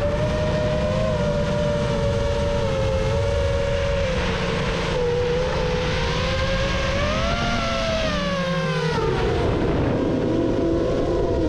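Mini FPV racing drone's motors and propellers whining, the pitch drifting and rising with throttle, then sweeping sharply down about nine seconds in, over a steady low rumble.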